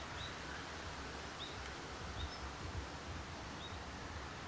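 Outdoor ambience: a steady hiss and low rumble, with a small bird giving short high chirps about once a second.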